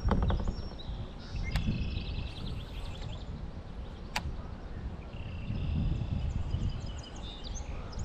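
Wind buffeting the microphone, with birds chirping now and then and two sharp clicks, about a second and a half and about four seconds in.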